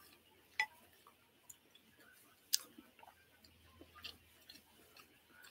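A person quietly chewing a mouthful of food close to the microphone, with a few soft mouth clicks and smacks, the sharpest about two and a half seconds in.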